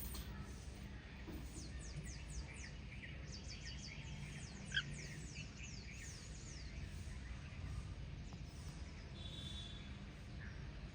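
Small pet parrots chirping: runs of quick, high, downward-sweeping chirps through the first two-thirds, one louder chirp about halfway, and a short held whistle near the end, over a steady low hum.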